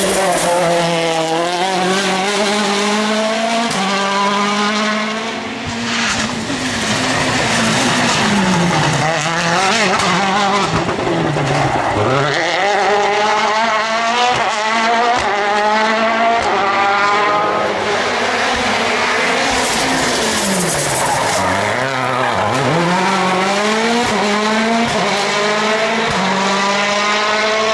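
World Rally Car 1.6-litre turbocharged four-cylinder engines revving hard through the gears on a tarmac rally stage. The pitch climbs and drops repeatedly with gear changes, with a few deep drops on braking and downshifts.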